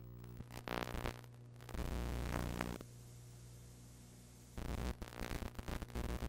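Steady electrical hum with stretches of hiss and crackle, typical of a videotape with no recorded sound running into blank, snowy tape.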